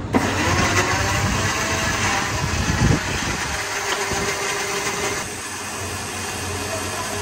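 Electric blender switching on and running, churning mango pieces with milk and sugar into a shake. It starts abruptly and runs steadily, getting a little quieter and duller about five seconds in.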